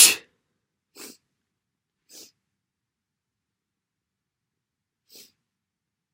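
A person's loud, wet sneeze cutting off just after the start, followed by three short, quiet breaths about one, two and five seconds in.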